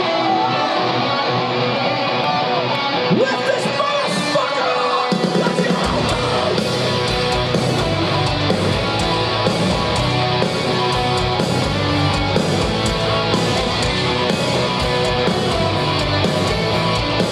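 Metalcore band playing live through a festival sound system, heard from within the crowd: an electric guitar riff plays alone at first, then bass and drums come in about five seconds in and the full band plays on.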